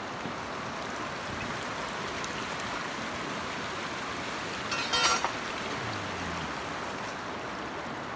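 Mountain creek water running over rocks: a steady rushing hiss, with one brief sharp sound about five seconds in.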